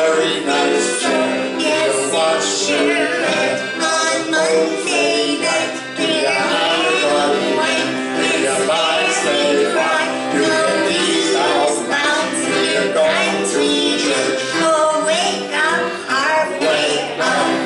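Live folk music on piano accordion and acoustic guitar, with a woman and a man singing.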